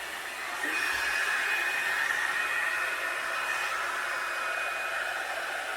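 Revlon One-Step hot-air dryer brush blowing through damp hair: a steady rush of air with a high motor whine. It gets louder about half a second in, and the whine then sinks slightly in pitch.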